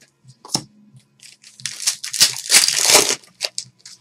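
Foil trading-card pack wrapper crinkling and being torn open by hand, with a loud burst of tearing and rustling about halfway through.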